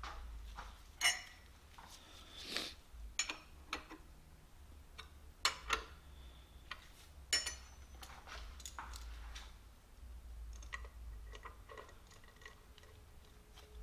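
Steel strap clamps and a wrench clinking against a steel fixture plate as the clamps are set and their nuts tightened: scattered sharp metal clicks and clanks, a few ringing briefly, thinning to softer ticks toward the end.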